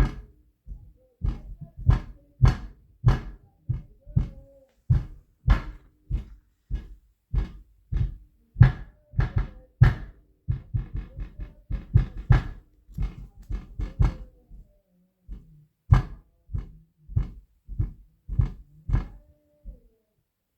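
Heavy footsteps thudding on a floor, about two a second and quicker for a stretch in the middle, with a short pause around fifteen seconds in. A faint held tone sounds under them.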